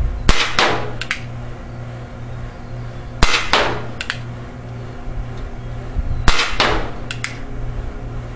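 Schofield revolver converted to .43 caliber paintball firing three shots about three seconds apart, each a sharp crack followed a fraction of a second later by the paintball hitting the target board and then a lighter click.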